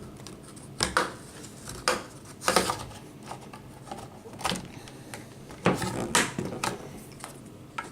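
Plastic laptop screen bezel being pried off with a plastic scraper: its clips crack and snap loose in a string of irregular sharp clicks, several seconds apart, with light scraping between.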